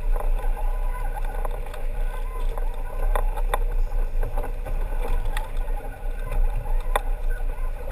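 Sportfishing boat's engine running in gear, a steady low rumble with water rushing along the hull. A few sharp knocks are heard in the second half.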